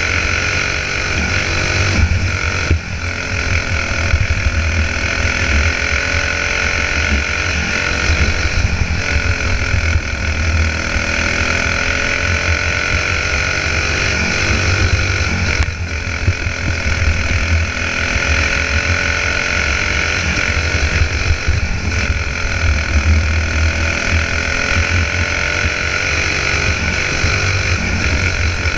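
Single-cylinder four-stroke clone engine of a dirt-track racing kart running at race speed, heard from on board. Its pitch rises and falls with the throttle, dipping briefly about every six or seven seconds as the kart goes through the turns.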